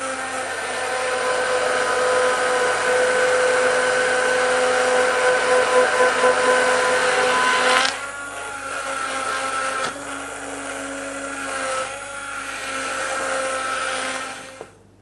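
Hand-held immersion (stick) blender running steadily, its motor whining as it purées creamy leek and potato soup in a stainless steel saucepan. About halfway through the motor note drops a little and gets quieter, and it stops just before the end.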